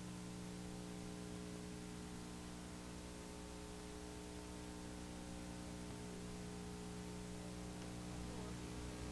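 Faint, steady electrical mains hum under a constant hiss, with no other sound.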